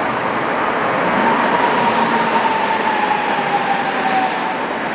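Electric street tram passing close by on its rails, a steady rolling rumble with a high whine that slowly falls in pitch and fades out near the end.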